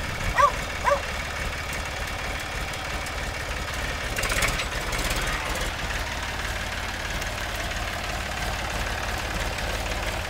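Tractor engine idling with a steady low throb. Two short high chirps sound about half a second apart near the start, and there is a brief louder noisy swell around the middle.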